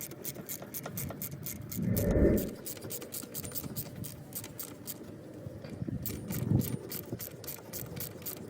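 Ratchet wrench clicking in a quick, even run, about four or five clicks a second, as an alternator mounting bolt is wound in, with a louder knock of metal on metal about two seconds in and again near the end.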